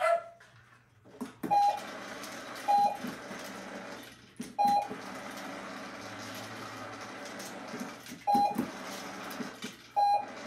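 Five short electronic beeps at uneven intervals over a steady hiss.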